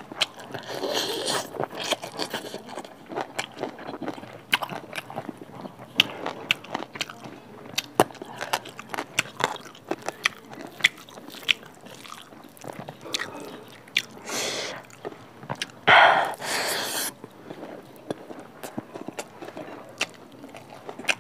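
Close-miked eating by hand of pork curry with rice: chewing and wet lip smacks with many sharp clicks, along with the sticky squelch of fingers mixing rice into the gravy. A louder noisy sound lasting about a second comes about sixteen seconds in.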